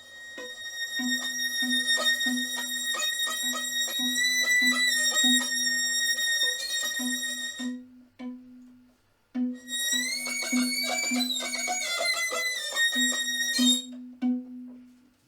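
Instrumental music: a violin-like lead holding long high notes over a low note plucked again and again in a steady pulse. The music breaks off for about a second near the middle, then starts again.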